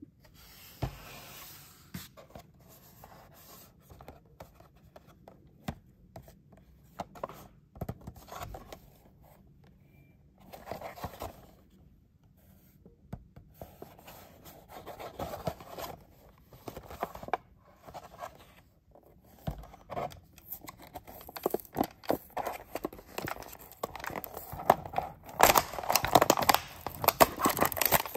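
Hands handling a Hot Wheels blister-card package, with scattered taps and rubs. From about two-thirds of the way through comes louder, dense crackling and tearing as the clear plastic blister is peeled off the cardboard backing.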